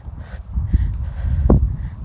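Wind buffeting a phone's microphone: a loud, gusty low rumble, with two bumps from the handheld phone, the second and louder about one and a half seconds in.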